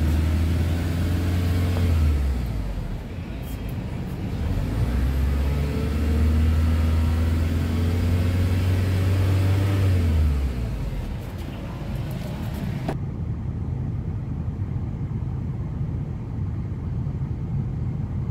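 Hyundai van's diesel engine, heard from inside the cab, held at raised revs of about 2000 RPM for a smoke emission test. It drops back about two seconds in, is held up again from about four seconds until about ten seconds in, then falls back to a steady idle.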